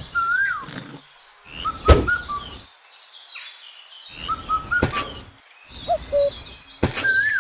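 Short chirping whistles, each call rising then falling in pitch, coming in small groups, with a few sharp knocks between them.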